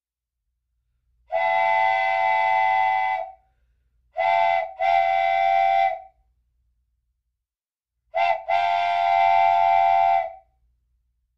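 A train whistle sounding a chord of several steady tones, blown in five blasts: one long, then a short and a longer one, then a short and a long one.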